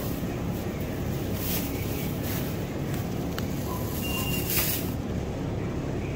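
Steady low rumble of store background noise, with a faint click and a short high beep about four seconds in.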